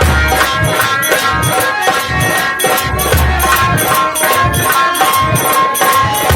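Nautanki folk-theatre ensemble playing: deep drums beating a fast, steady rhythm with jingling metal percussion on every stroke, under a sustained melody line.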